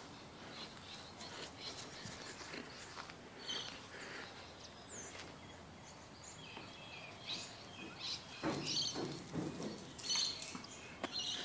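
Faint outdoor birdsong: scattered short, high chirps from small birds, with one quick gliding note about five seconds in. Soft rustling steps come in about two-thirds of the way through.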